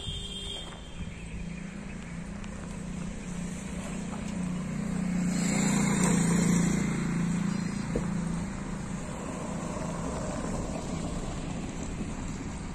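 A motor vehicle running, growing louder to a peak about halfway through and then fading.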